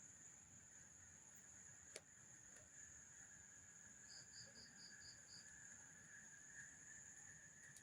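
Faint night insects trilling steadily at a high pitch, with a quick run of six short chirps in the middle and a single sharp click about two seconds in.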